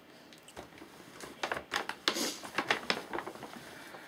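Rummaging in a gift bag: a quick run of short crinkling rustles and clicks, busiest in the middle, as items are handled and pulled out, then quieting near the end.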